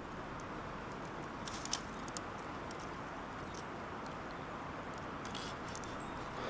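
Wood fire crackling: scattered sharp pops and clicks over a steady low rush, with a cluster of pops about a second and a half in and a few more near the end.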